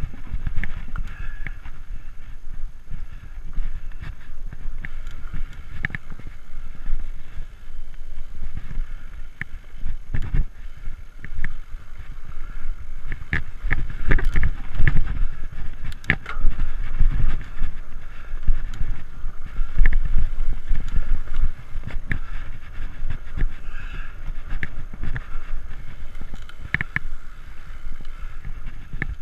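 Framed Alaskan fat-tire mountain bike riding over a dirt singletrack: a low rumble of tyres and motion that rises and falls, with frequent clicks, knocks and rattles as the bike jolts over bumps.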